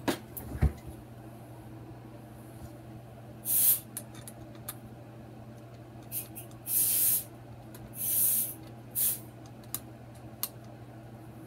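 A hand screwdriver working screws into a plastic animatronic head base: several short hissing scrapes and a few small clicks, over a steady low hum.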